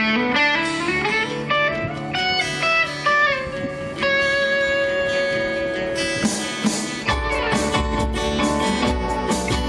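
Live band playing, with guitar prominent: a melody line slides upward and then holds one long steady note, and about seven seconds in the bass and drums come in underneath.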